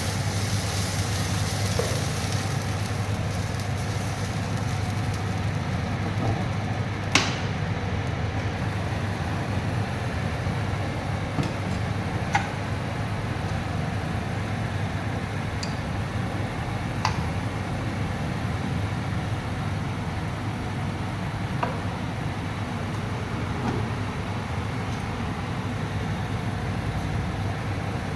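Cooking on a stove: a steady hiss and low hum with a handful of sharp clicks of a utensil against the pan, the loudest about seven seconds in.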